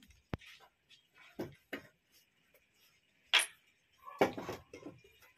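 Scattered sharp knocks and clicks of bricks being tapped and handled on a freshly laid brick wall. The sharpest click comes a little past three seconds in, and a heavier knock follows just after four.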